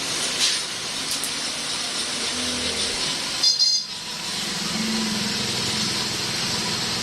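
An engine running, its low drone becoming clearer about five seconds in, over a steady hiss of background noise with a few light clicks.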